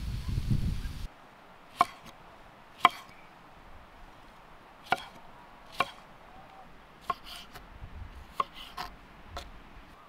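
Chef's knife chopping a cucumber on a wooden cutting board: sharp knocks of the blade on the board about once a second, a few coming quicker near the end. A low rumble fills the first second before it.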